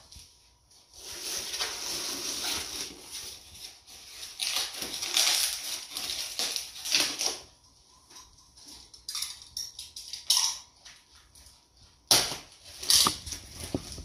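Clear plastic packaging bag crinkling and rustling as it is handled, with sharper crackles near the end.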